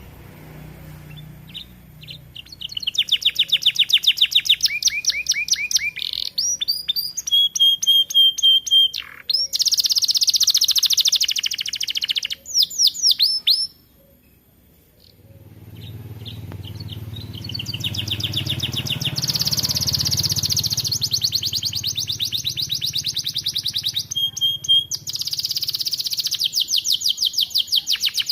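Young canary singing in long, fast, rolling trills of rapidly repeated high notes, breaking off once for about a second midway. A low rumble runs under the second half.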